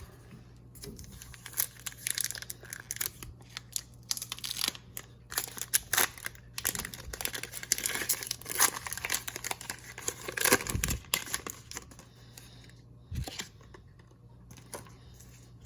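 Foil wrapper of a Pokémon trading card booster pack being torn open and crinkled, a dense crackling rustle that thins out about three-quarters of the way through, followed by a single light knock.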